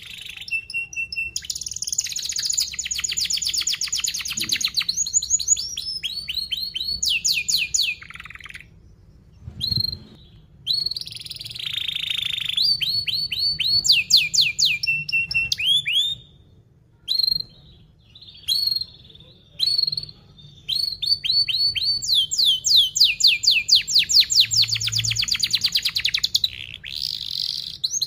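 Domestic canary singing: fast rolling trills of rapidly repeated notes and sweeping notes, in long phrases broken by a few short pauses.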